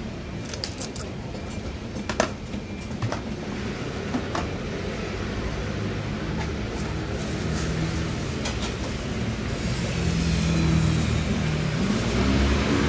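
A metal spoon clicks sharply a few times in the first four seconds as red bean filling is scooped from a plastic tub, over a steady low background rumble that grows louder near the end.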